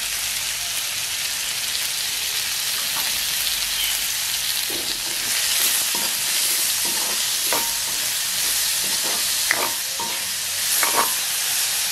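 Chopped onions, dried red chillies and curry leaves sizzling in sesame oil in a metal kadai while being tempered. A spatula stirs them, scraping and knocking against the pan now and then, more often in the second half.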